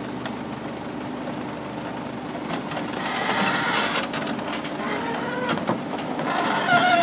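Komatsu PC450 tracked excavator driving onto a lowboy trailer: its diesel engine runs steadily under the clank and knock of the steel crawler tracks on the trailer deck, with metal squealing rising in pitch near the end.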